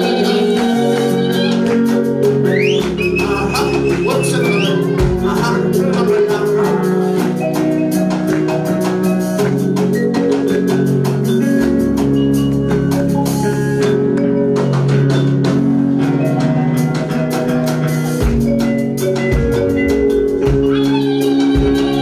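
Live church band music with sustained chords over a steady drum beat, mostly instrumental, with singing heard briefly at the start and again near the end.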